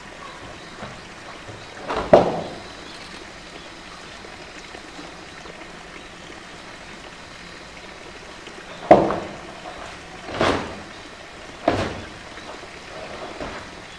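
Hollow knocks of a blue plastic drum being pushed and mouthed by a polar bear on a concrete floor: one loud knock about two seconds in, then three more spaced over the second half, over a steady background hiss.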